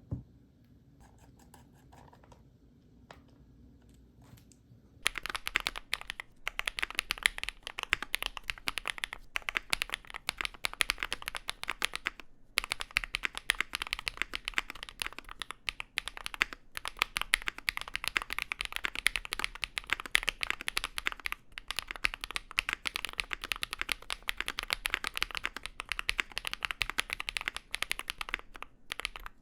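Mechanical keyboard with BSUN Bunny linear switches (light, early bottom-out, PC top housing, PA bottom housing, LY stem) in an aluminium-plate Enter67. A few faint keystrokes for about five seconds, then fast continuous typing with a few brief pauses.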